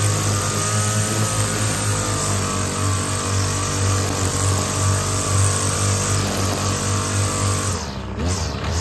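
String trimmer running steadily at speed while edging grass along a concrete sidewalk. Near the end its speed drops off briefly and it goes quieter.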